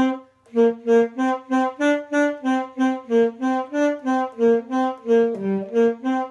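Alto saxophone playing a quick melodic run of separately tongued notes, about three a second and not slurred, after a brief pause near the start.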